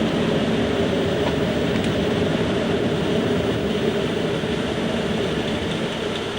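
Loud airflow noise on Concorde's flight deck in the climb, a steady rush. It eases off slowly near the end as the droop nose and visor are raised, streamlining the aircraft.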